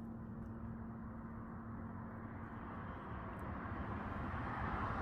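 Steady outdoor vehicle noise with a faint steady hum, growing louder near the end as a vehicle draws closer.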